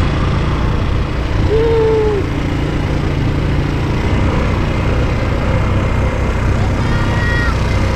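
ATV engine running steadily as it rides along, with a short pitched sound, like a brief voice, about a second and a half in.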